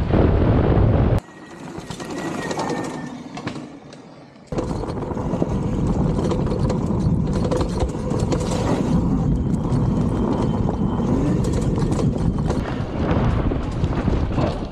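Wind buffeting the microphone and tyre noise on the dirt as an electric YZ85 dirt bike conversion, a 72 V hub motor run as a mid drive, rides along a trail; there is no engine sound. The noise drops sharply about a second in and comes back loud at about four and a half seconds.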